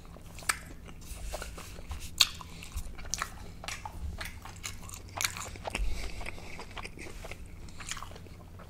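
Close-miked chewing of food: wet mouth clicks and smacks at irregular intervals.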